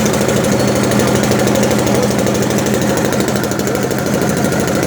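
Ford Cargo truck's freshly rebuilt diesel engine running at a steady idle just after starting, with a fast, even diesel clatter.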